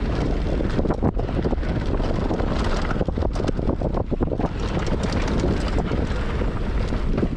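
Mountain bike rolling fast down a loose dirt trail: tyres rumbling over the dirt and the bike knocking and rattling over bumps, with wind buffeting the microphone.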